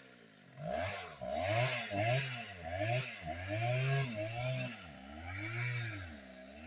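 Chainsaw engine being revved up and down over and over, its pitch rising and falling in quick swells a little more than once a second.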